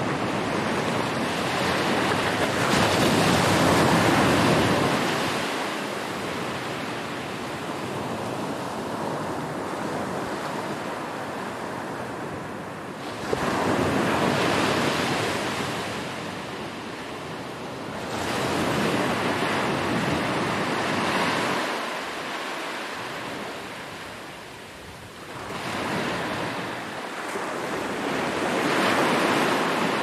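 Small ocean waves breaking on a sandy beach and washing up the shore, a rushing surf noise that swells and ebbs, with four louder surges as waves break.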